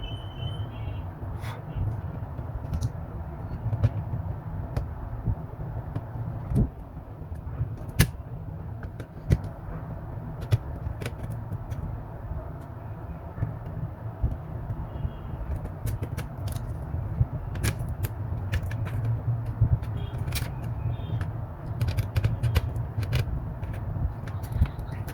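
Irregular small clicks and taps of hand tools and plastic parts as an opened HP Chromebook laptop is taken apart, over a steady low hum.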